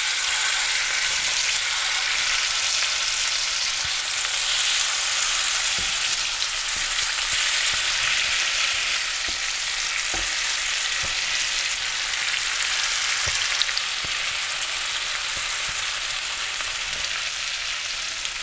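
Marinated chicken pieces sizzling steadily in hot oil in a nonstick frying pan, with a few soft knocks of metal tongs against the pan.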